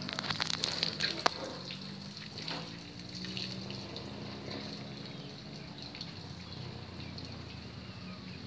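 Heavy vehicle engine idling with a steady low hum. A few clicks and one sharp knock come about a second in.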